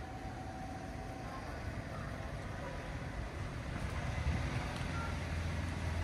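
Outdoor background noise: a steady low rumble with an even hiss, growing louder about halfway through.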